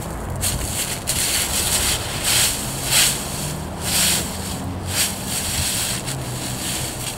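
Footsteps crunching through dry fallen leaves, a short rustle roughly once a second, over a steady rumble of wind buffeting the microphone.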